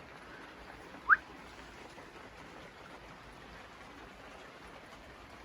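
A single short, rising chirp about a second in, over a faint steady hiss.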